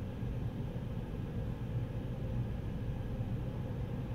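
Steady low hum heard from inside a waiting vehicle's cabin, with no change or sudden sounds.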